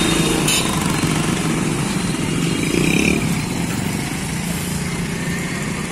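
Motorcycles running as they ride past along a busy street, over general traffic noise; the loudest pass comes about three seconds in.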